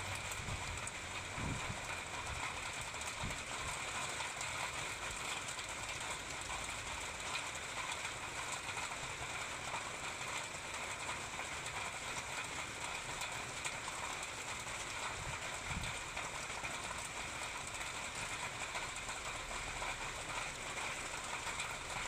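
Steady rain falling on wet pavement, parked cars and foliage: a dense, even hiss of many small drop impacts. A couple of brief low thumps sound about a second and a half in and near sixteen seconds.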